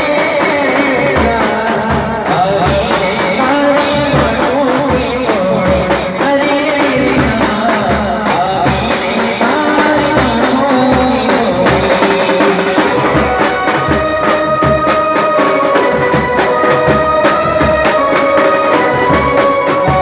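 Indian wedding-band style music: a wind instrument plays a wavering, ornamented melody over a steady drum beat.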